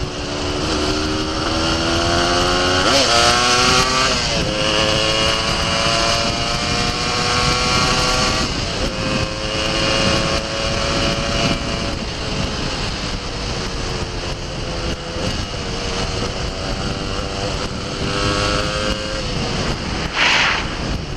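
Yamaha dual-sport motorcycle engine riding along a dirt road. Its pitch climbs and drops back at gear changes about three and four seconds in, then settles to a steady cruise with gentle rises and falls. Heavy wind rush runs under the engine, with a brief loud rush of wind noise near the end.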